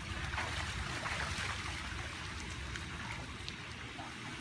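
Swimming-pool water lapping and trickling in a steady, fairly quiet wash.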